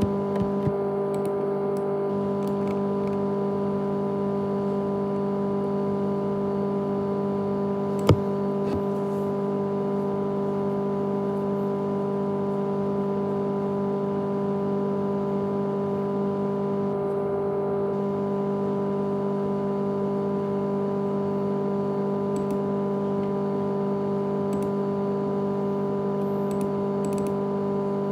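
A 500GB laptop hard disk drive in a USB enclosure running with a loud, steady hum of several fixed tones. One sharp click about eight seconds in.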